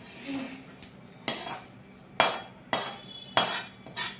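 Metal slotted skimmer scraping and tapping against a metal kadhai, about five sharp clinks spaced roughly half a second to a second apart, as dry-roasted shahi jeera seeds are scooped out of the pan.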